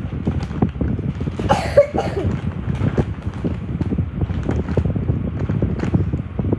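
Close rustling and handling noise: paper and plastic shopping bags being handled, with hair and clothing brushing against the microphone, full of small knocks and rubs. A brief sharper, brighter sound stands out about one and a half seconds in.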